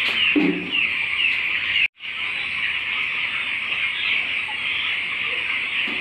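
Chickens in a poultry shed: a dense, steady chorus of many short, high peeping calls, with a lower cluck just under a second in. The sound cuts out for an instant about two seconds in.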